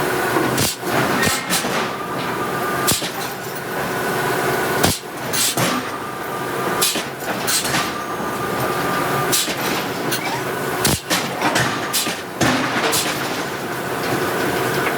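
Hydraulic forging hammer striking hot steel in a string of irregular blows, roughly one a second, over a steady hum of shop machinery with a few held tones.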